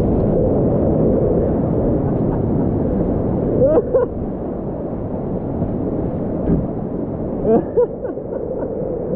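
Whitewater river rapids rushing around a kayak, a loud steady low rush heard close up through a GoPro's microphone. Two brief pitched voice sounds cut through the rush, about four seconds in and again near eight seconds.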